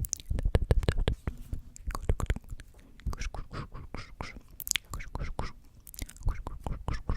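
Unintelligible close-miked whispering mixed with many quick mouth clicks, the 'tk tk' sounds of ASMR.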